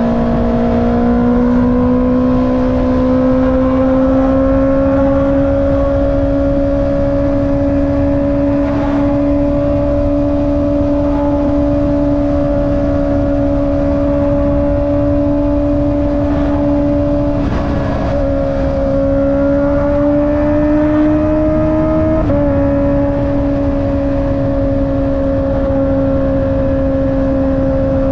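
Honda CB650R's inline-four engine through an Akrapovic exhaust, holding a steady cruising note that climbs slowly. About 22 seconds in the pitch drops suddenly, as on an upshift, and then holds steady again. Wind rush runs underneath.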